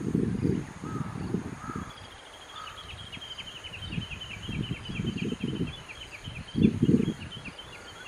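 Wind buffeting the microphone in irregular low rumbling gusts, loudest near the start and twice more later. From about two seconds in, a fast high-pitched series of short repeated notes, about five or six a second, carries on underneath, with a few faint short calls in the first couple of seconds.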